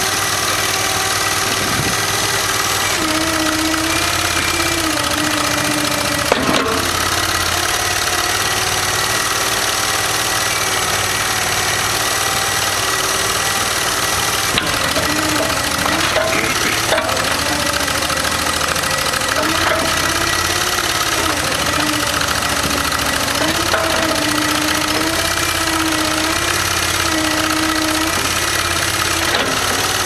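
Kohler Command 25 hp V-twin engine running the backhoe's hydraulic pump, its pitch sagging and recovering again and again as the boom and bucket are worked under load. A few sharp knocks come through now and then.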